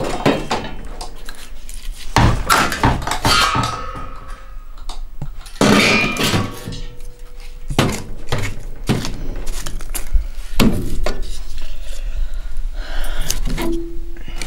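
Sticks of firewood being dropped and knocked into the firebox of a metal wood-burning stove: a string of irregular wooden thunks and clanks against the metal, with shifting and scraping on the embers between them.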